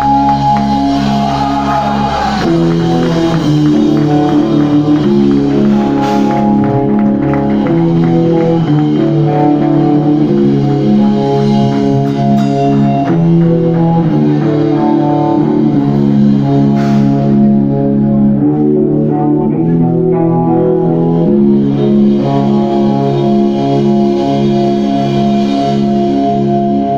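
Live rock band playing loudly: electric guitar chords that ring out and change every second or two, over drums and cymbals.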